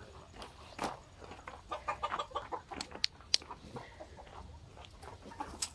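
Chickens clucking in a pen, a scatter of short calls, busiest about two seconds in. Two sharp clicks come close together about halfway through.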